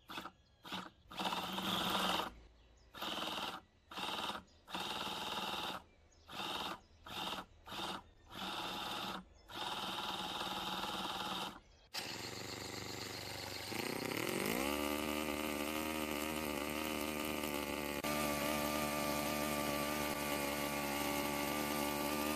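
Semto ST-NF2 7cc twin-cylinder four-stroke nitro glow engine being started: its small electric starter motor cranks it in about ten short presses. About twelve seconds in it cranks steadily, then the engine fires and its pitch rises as it catches and settles into steady running.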